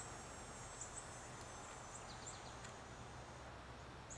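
Faint outdoor ambience: short, high chirps from birds, spaced irregularly about once a second, over a low steady hum.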